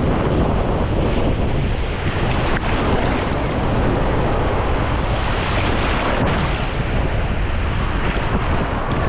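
Wind buffeting the microphone over the steady wash of sea surf on a beach, a dense, unbroken rumble.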